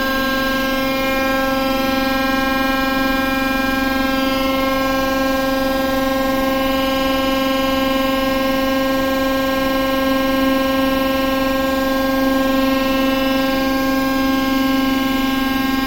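Steady, loud whine from the TEP70 diesel locomotive's machinery during an engine start attempt: one held tone with many overtones, swelling slightly about ten seconds in.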